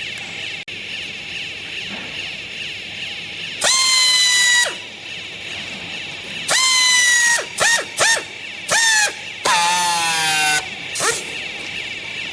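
A series of loud horn-like honks over a steady machine hum: two long blasts and several short ones, each starting with a slight rise in pitch and dropping away at the end.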